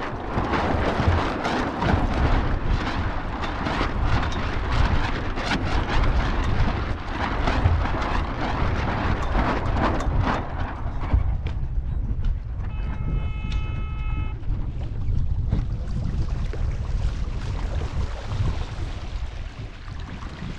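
Wind buffeting the microphone over the rush of water along a Lightning sailboat's hull, in gusts. Just past the middle a steady tone sounds for about a second and a half.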